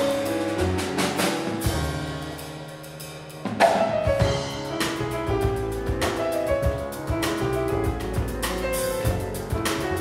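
Live piano, double bass and drum kit trio playing. The band drops to a quieter passage for about a second and a half, then comes back in with a loud accent about three and a half seconds in.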